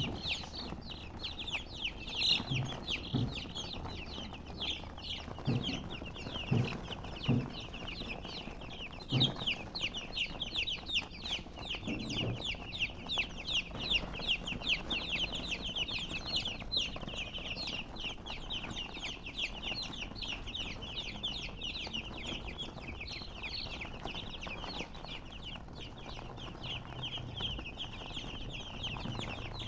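Chicks chirping continuously in a dense high chorus, with a hen clucking low several times during the first half.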